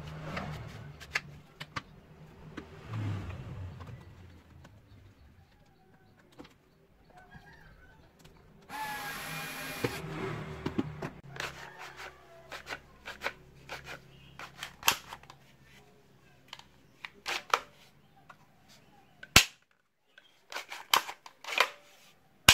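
Wooden parts of a homemade slingshot pistol knocking and clicking as they are handled and slid together, with one sharp, loud snap a few seconds before the end.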